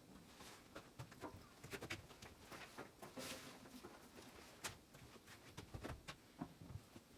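Near silence broken by scattered faint clicks and ticks.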